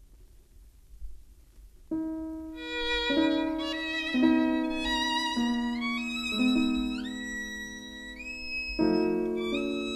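Faint vinyl record surface noise, then about two seconds in a slow instrumental introduction to a lullaby begins, led by a bowed violin holding long notes over sustained notes beneath it.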